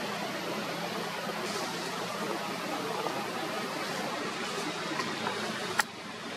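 Steady, even rushing hiss of background noise, with one sharp click shortly before the end.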